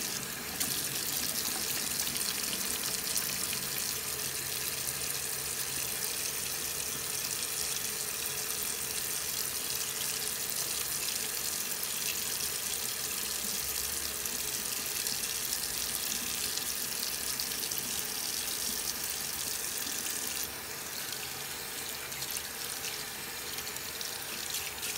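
Tap water running steadily into a bathroom sink while hands are rubbed together under the stream during a hand wash. The rush gets a little quieter about twenty seconds in.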